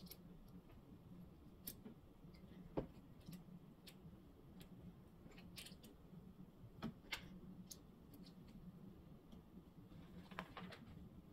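Near silence with faint, scattered clicks of plastic LEGO pieces being handled and pressed together, a few of them sharper, over a faint steady low hum.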